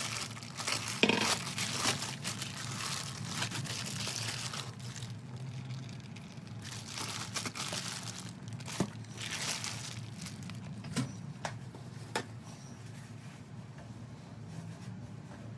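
Vacuum-sealed plastic meat packaging crinkling and tearing as it is slit open with a knife and a whole brisket is pulled out of it. The rustling is loudest in the first few seconds and comes again in the middle, with a few sharp taps after it, then dies down.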